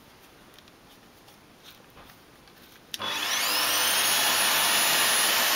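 Vacuum cleaner motor driving a homemade cyclone dust separator, switched on about three seconds in: it spins up with a rising whine, then runs steadily with a loud rush of air.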